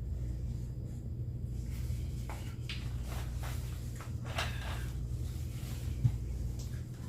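Faint clicks and rustles of handling food and containers at the table, with one sharper click about six seconds in, over a steady low hum.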